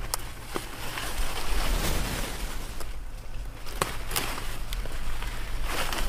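Large squash leaves and vines rustling as they are handled, with several sharp snaps as squash vine tips are cut off with a small knife, over a low wind rumble.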